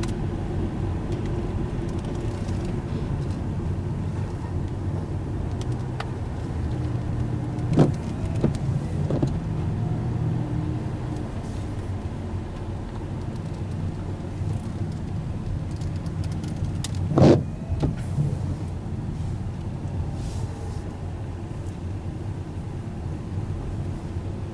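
Car driving slowly, heard from inside the cabin: a steady low engine and tyre hum. Two short knocks break through, one about eight seconds in and a louder one about seventeen seconds in.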